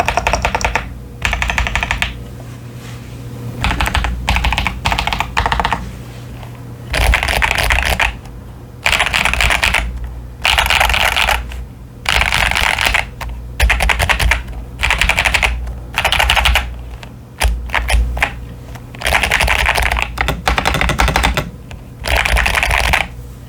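Typing on a modded CIY Tester 68 hotswap mechanical keyboard fitted with pre-lubed Akko Lavender Purple tactile switches and Cherry-profile PBT keycaps. The keystrokes come in about a dozen quick runs, each about a second long, with short pauses between.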